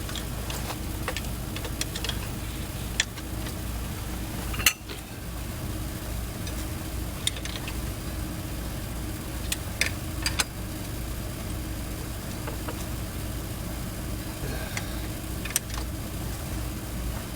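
An engine idling steadily, with a few sharp metallic clinks and knocks scattered through it.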